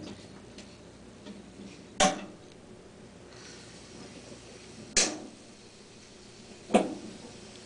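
Three sharp knocks of something hard striking, the first about two seconds in, the next three seconds later and the last near the end, over faint room noise.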